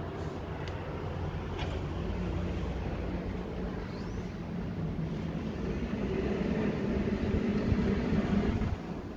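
Steady low outdoor rumble with a faint hum, growing a little louder over the last few seconds and then cutting off abruptly at the end.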